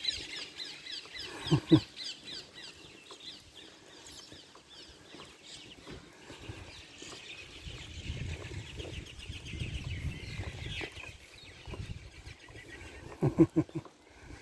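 Small birds chirping and twittering in quick repeated notes throughout. A low rumble comes in around the middle, and there are two brief louder sounds, one a couple of seconds in and one near the end.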